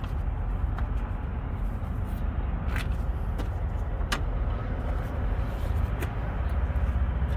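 Steady low rumble of idling diesel truck engines, with a few light clicks about three, four and six seconds in.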